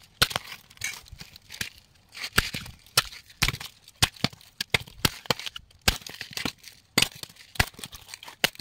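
Palmyra palm fruits being hacked open with a knife: sharp chopping strikes, irregular, about one or two a second, with crackling and tearing of the fibrous husk between them.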